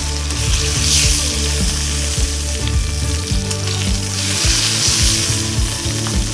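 Meat for a yakiniku rice bowl frying and sizzling in a pan. The sizzle swells louder about a second in and again around four to five seconds in.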